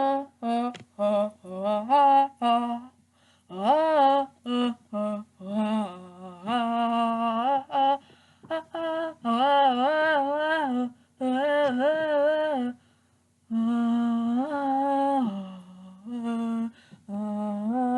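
A single voice humming a melody with no accompaniment, in short sung phrases broken by brief pauses.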